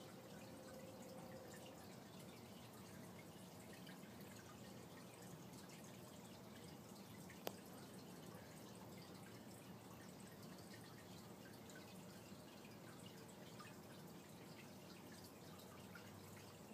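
Near silence with faint aquarium water sounds: a soft steady trickle with many small drips. One sharp click comes about halfway through.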